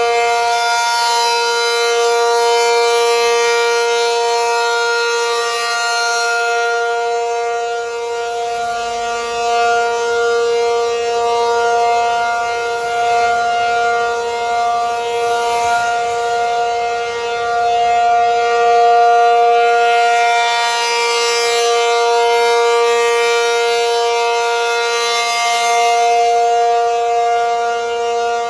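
ACA Penetrator 50 (P-50) outdoor warning siren sounding a steady alert tone for a tornado warning. The tone holds one pitch and swells and fades every few seconds as the rotating horn sweeps past.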